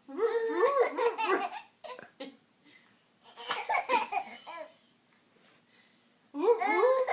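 A young child laughing in high-pitched bouts: a burst at the start, another about three and a half seconds in, and a third starting near the end.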